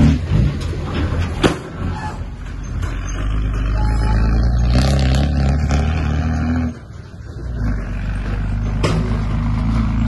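Heavy diesel engine of earthmoving machinery running steadily under load, with a sharp metallic knock about a second and a half in. The engine sound falls away for under a second near the seven-second mark, then picks up again.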